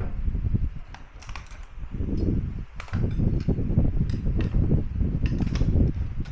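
Sharp clicks and knocks, about eight spread irregularly, from parts and tools being handled while a front-loading washing machine is repaired, over an uneven low rumble.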